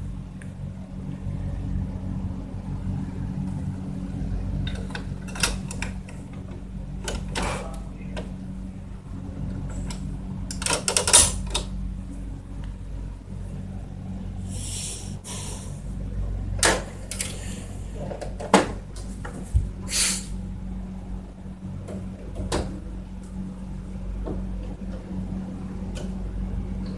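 Scattered plastic clicks and knocks from an HP Officejet K7108 inkjet printer as an ink cartridge is seated and its cover shut, with a short scrape about halfway through, over a steady low hum.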